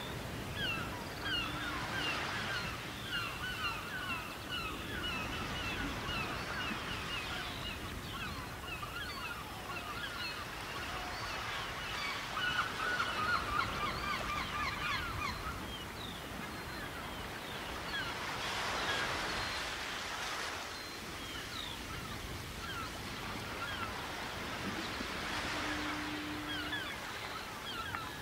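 A crowd of seabirds calling together in a dense chatter of short chirping calls, over surf washing on the shore; the waves swell up about two-thirds of the way through and again near the end. A short low steady tone sounds twice, near the start and near the end.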